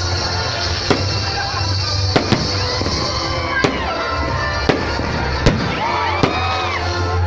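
Fireworks going off in sharp, irregularly spaced bangs, about seven in all, over steady background music.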